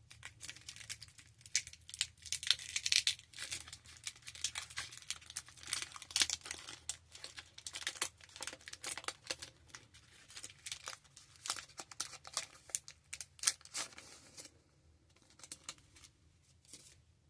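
A trading card pack's wrapper being torn open and crinkled: a dense run of crackles and rips that thins to a few scattered ticks near the end.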